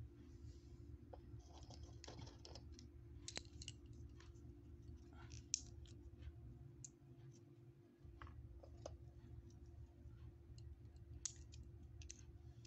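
Pistachio shells cracking and clicking as they are pried open by hand: faint, irregular sharp clicks over a steady low hum.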